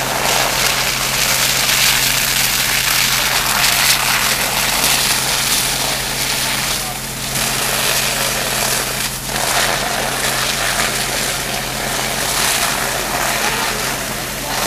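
Fire hose stream rushing and hissing into a burning building over the steady drone of a running engine; the rush dips briefly twice midway.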